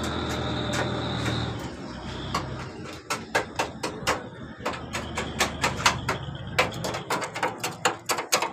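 An engine running steadily, fading out after about two and a half seconds. Then a quick, irregular series of sharp clicks and knocks, several a second, until the end.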